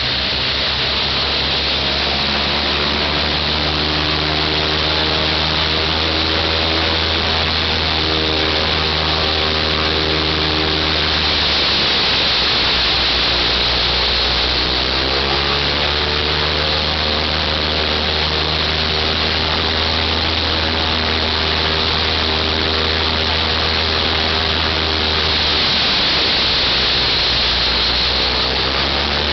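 The right-hand Shvetsov ASh-82T fourteen-cylinder radial engine of an Ilyushin Il-14T runs steadily on the ground with its propeller turning. Its pitch swings up and down a little about twelve seconds in and again near the end.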